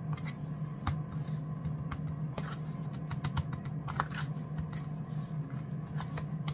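Fingers pressing and turning a piece of tilapia in flour in a dark metal baking pan: irregular light taps and clicks against the pan, over a steady low hum.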